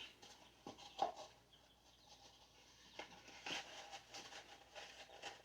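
Faint, scattered light taps and rustles of hands handling small seedling pots and potting soil, about half a dozen in all.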